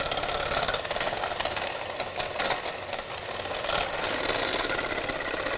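Electric hand mixer running steadily, its beaters whipping egg whites in a glass bowl for a meringue.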